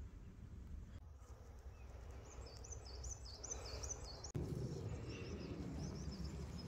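A small bird singing a quick run of high, repeated chirps over a low background rumble. About four seconds in, the background changes abruptly and grows louder.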